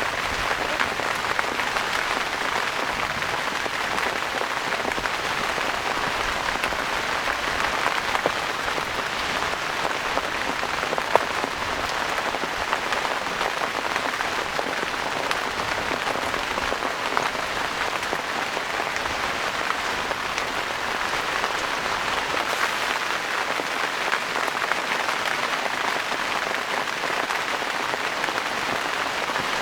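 Heavy rain falling steadily, a dense even patter with the odd louder single drop.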